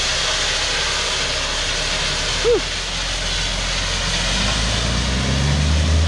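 Dump truck spreading gravel from its raised bed as it pulls away: a steady hiss and rattle of stone pouring onto the driveway, with the truck's engine hum growing stronger in the last couple of seconds. A short squeak about halfway through.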